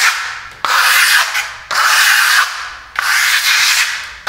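Steel trowel scraping across a wall through a wet first coat of coarse-grained pearlescent decorative plaster, in four strokes about a second apart; each starts sharply and trails off.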